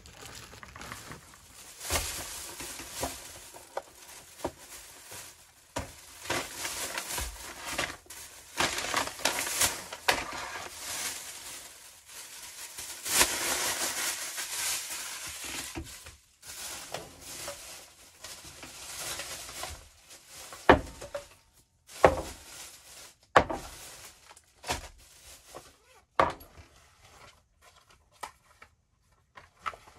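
Irregular rustling and crinkling of plastic bags and fabric as gear is packed and unpacked by hand, broken by a few short sharp knocks and clicks in the second half.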